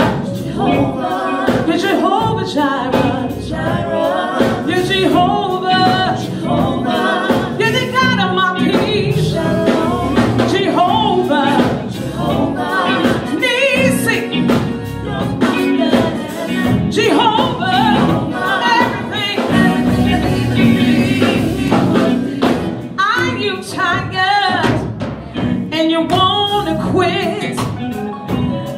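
Live gospel music: a woman sings lead into a microphone, backed by a band with bass guitar and drums.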